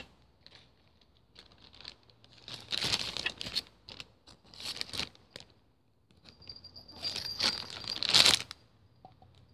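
Plastic bag crinkling and rustling in several bursts as homemade slime is poured into it.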